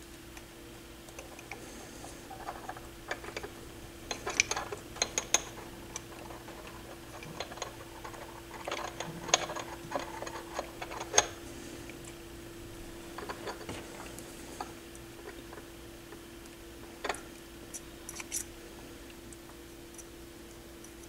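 Scattered small clicks and taps of hands fitting the parts of a turntable motor assembly back together, busiest in the first half, over a faint steady hum.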